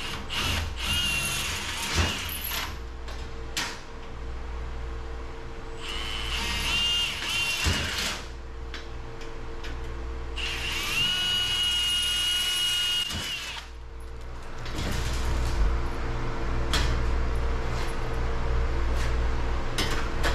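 Milwaukee cordless drill boring through a sheet-metal electrical panel cover with a small metal drill bit, in three runs of a few seconds each with a steady high whine, with clicks between them. For the last few seconds a steady low hum takes over.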